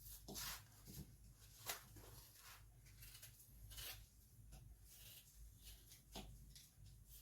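Faint, irregular cutting and scraping strokes of a blade working through a fresh pear as it is peeled and diced, about one or two strokes a second.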